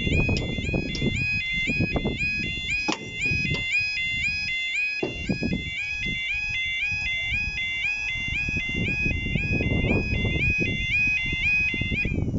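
Level crossing warning alarm sounding a rapid, repeating two-tone electronic warble over a low rumble, cutting off abruptly near the end.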